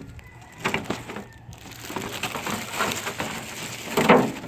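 Plastic packaging and a hard plastic RC car body being handled and pulled free, giving irregular crackling and rustling with a louder crackle about four seconds in.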